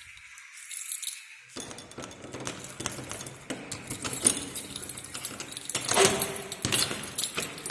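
Keys jangling with metallic clicks and clinks of a lock and latch as a door is unlocked and opened, loudest twice in the second half.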